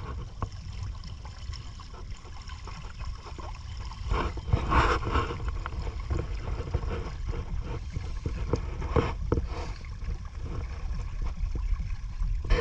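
Small boat moving across floodwater: water sloshing and gurgling against the hull over a steady low rumble, with louder splashes about four to five seconds in and again about nine seconds in.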